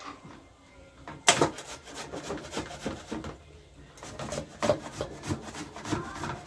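Hand grating raw cassava on a metal box grater: irregular rasping strokes, with a sharp knock about a second in and a short pause near the middle.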